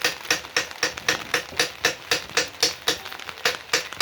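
A rapid, even series of sharp knocks or chops, about four a second, each with a slight ring.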